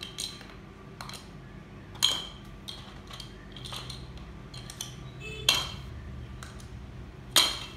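Lego Duplo bricks handled with plastic tongs and clattering into a plastic bowl: separate sharp clacks every second or two, the loudest about two, five and a half and seven and a half seconds in.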